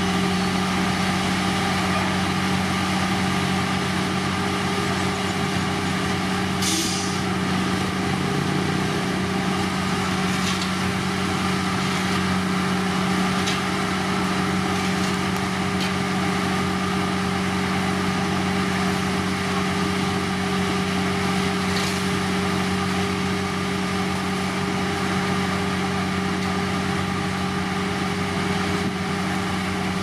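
Heavy road-construction machine's diesel engine running at a steady drone. A brief hiss comes about seven seconds in, with a few fainter ones later.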